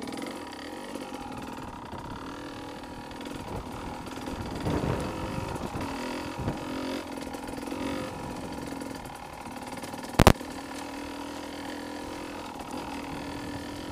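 Beta 300 RR two-stroke enduro motorcycle engine running steadily at low speed on a dirt byway, with one short, sharp knock about ten seconds in.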